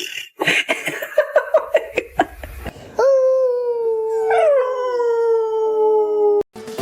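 Dog giving a quick run of short yips, then about three seconds in breaking into one long steady howl, with a second falling howl sliding across it; the sound cuts off suddenly near the end.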